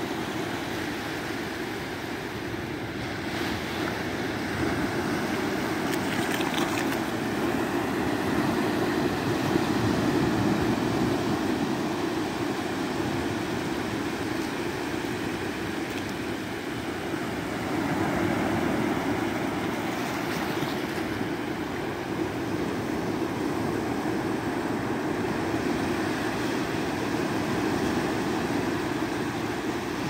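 Small sea waves breaking and washing up over a sandy beach, a steady surf that swells and eases in slow surges.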